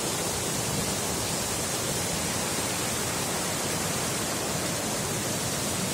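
Waterfall cascading over rock ledges, recorded close up: a steady, unbroken rush of falling water.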